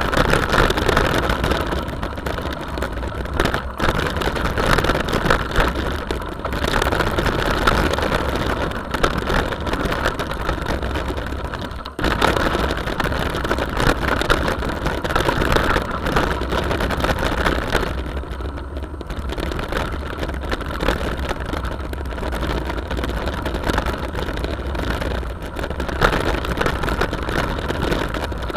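Steady rushing noise of a bicycle ride on a gravel track: wind buffeting the camera microphone over the rumble of tyres rolling on gravel, with a brief break about twelve seconds in.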